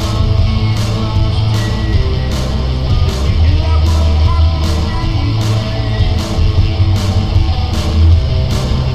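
Rock music led by guitar, over a steady drum beat with a hit about every three-quarters of a second.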